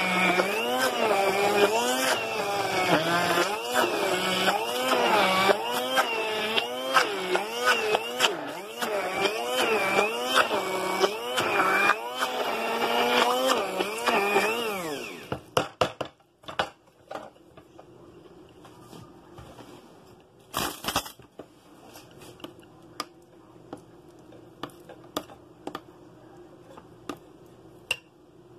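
Electric food processor running and churning a thick meat paste, its motor pitch rising and falling in a steady wobble, under a second per cycle, as the blade labours through the mixture. It winds down about fifteen seconds in, followed by a few light clicks and knocks of the bowl.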